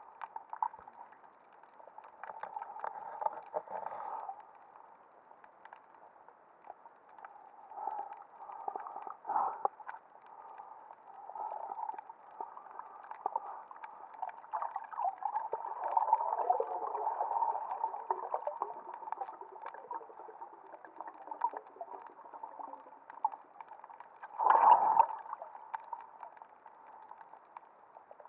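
Muffled underwater water noise picked up through an action camera's waterproof housing: sloshing and gurgling that swells and fades, with the loudest surge near the end.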